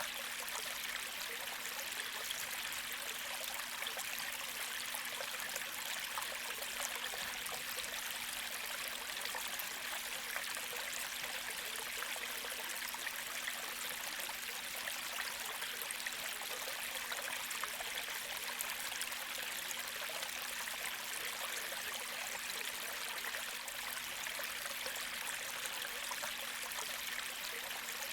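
Gentle creek flowing steadily, a continuous hiss and trickle of shallow moving water.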